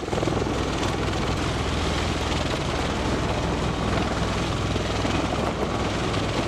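Bell Boeing V-22 Osprey tiltrotor lifting off vertically with its proprotors tilted up in helicopter mode. Its two Rolls-Royce AE 1107C turboshafts run at takeoff power, giving a steady, rapid rotor beat over a wide rush of noise.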